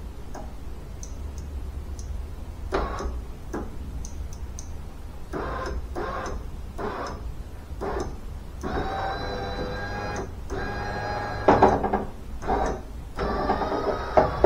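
A new power window motor and regulator in a 1998 Ford Mustang door, running the glass in steady whining stretches of a few seconds each. Scattered clicks and knocks come first, and there is a loud thunk partway through the motor runs.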